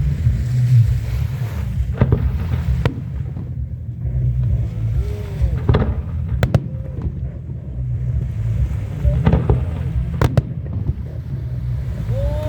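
Fireworks bursting: a continuous low rumble of booms, with several sharp cracks scattered through it.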